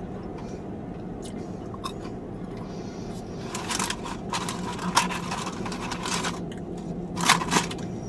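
Close-up eating sounds: chewing fried cheese curds, then paper and cardboard crinkling from about three and a half seconds in as a hand digs into the curd box, with two louder crackles near the end.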